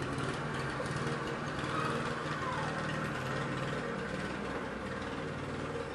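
Briggs & Stratton lawn mower engine running steadily. It sounds tired, and the uploader thinks it needs a service to run right.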